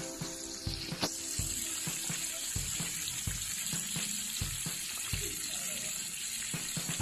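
Breaded chicken pieces deep-frying in a pan of hot oil: a steady sizzling hiss with irregular crackles and pops, one sharper pop about a second in.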